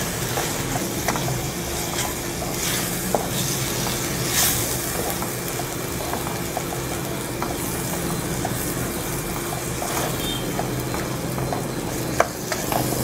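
Chopped tomatoes, onions and green chillies frying in oil in a pan, sizzling steadily, with a few light taps and scrapes of a wooden spatula.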